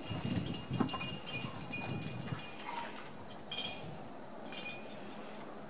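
Small metal bells jingling in irregular bursts of high ringing, thickest in the first two and a half seconds, then twice more briefly, with scuffling of puppies at play.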